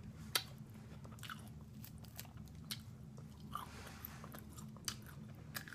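Close-miked chewing of crispy fried food, with scattered sharp crunches and mouth clicks at irregular intervals.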